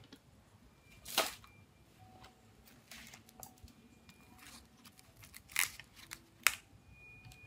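Handling and small hand-tool noises on a phone's parts: a few short, sharp clicks and scrapes, the loudest about a second in and two more near the end, with softer scratching in between.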